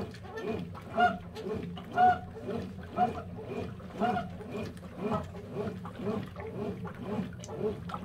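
Consul Facilite CWC10 top-loading washing machine agitating a load in soapy water: rhythmic churning and sloshing, about three to four strokes a second. A short honking squeak comes roughly once a second through the first half.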